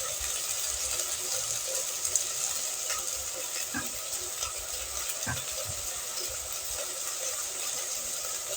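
Minced okra and onion sautéing in a pan: a steady sizzle, with scattered light clicks of a spoon stirring.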